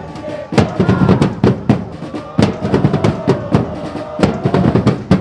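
A crowd of football supporters singing a chant together in the stand, driven by loud, frequent drum beats.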